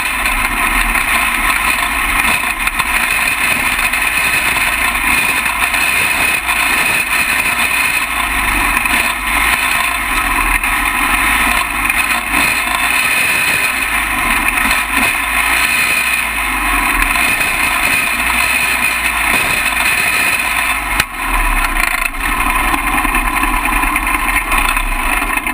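Champ kart's small engine running steadily at low speed, heard close up from an onboard camera mounted on the kart, as it rolls off the dirt track through the pits. One sharp knock near the end.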